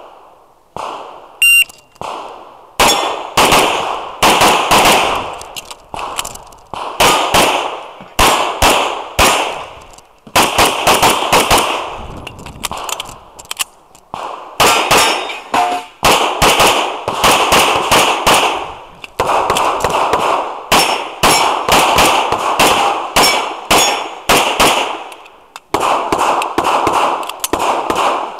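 A shot-timer beep, then a 1911-style pistol fired in fast strings of shots, often in pairs, broken by short pauses for movement and reloads. This is a full IPSC stage run, with some hits ringing on steel targets.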